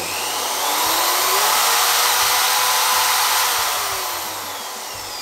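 Bosch GSB corded impact drill running free with no load, its motor whine rising as the trigger is squeezed to high speed, holding steady, then falling away near the end as it slows.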